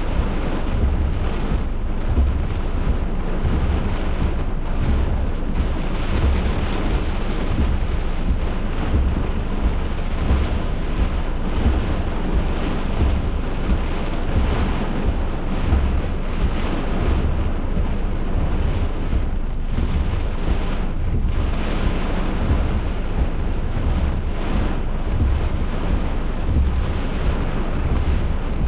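Severe thunderstorm: a steady, loud rush of wind-driven rain with a constant low rumble underneath.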